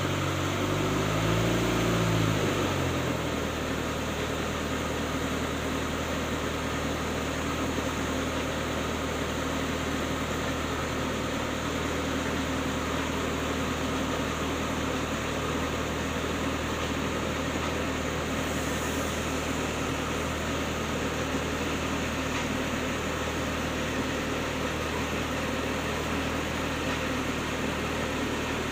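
Engine of a clay brick-making machine, just started: its pitch swings up and back down over the first few seconds, then it settles into a steady run.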